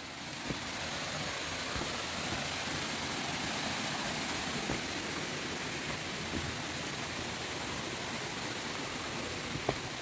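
Steady rush of a rocky stream's flowing water, easing slightly near the end, with a few faint knocks.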